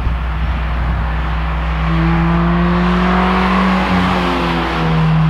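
A 2017 Subaru BRZ's flat-four running through an Invidia N1 catback exhaust as the car drives past. The exhaust note grows louder as it approaches, and its pitch drops as it passes, about four seconds in.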